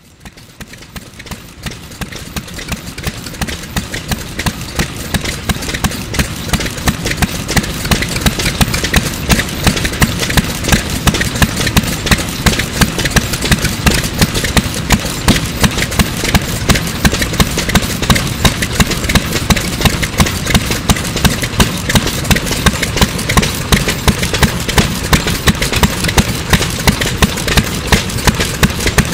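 Single-cylinder hopper-cooled STRONG Type A stationary kerosene engine (2.5 hp, 700 rpm) running with a steady train of regular firing beats. The level builds over the first several seconds, then holds even.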